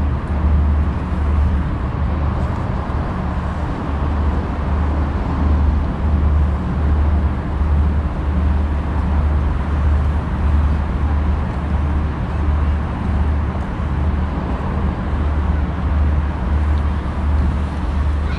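Steady city road traffic noise passing along the street, with a low thudding that pulses evenly a little under twice a second.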